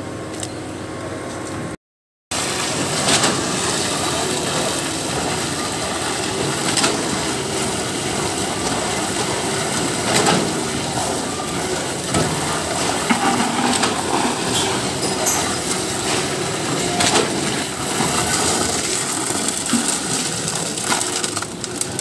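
Wet concrete being worked by hand on a rebar slab during a pour: continuous rough scraping and sloshing of shovels and a wooden board through the mix, with scattered sharp knocks every few seconds. The sound drops out briefly about two seconds in.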